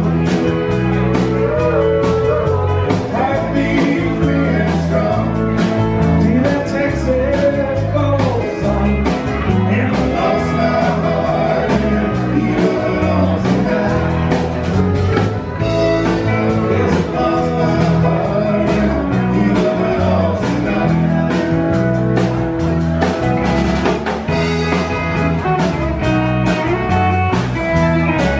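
Live country band playing amplified, with electric and acoustic guitars, electric bass, a drum kit keeping a steady beat, and a pedal steel guitar.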